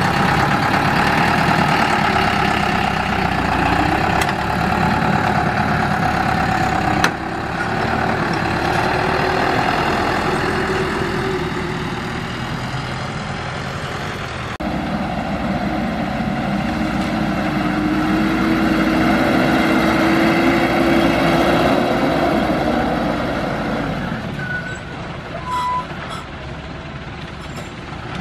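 Small dump truck's diesel engine running hard under load, its pitch holding steady, then sinking and climbing again as the revs change.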